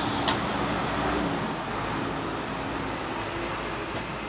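Truck engine and road noise, steady, with a single sharp knock about a third of a second in.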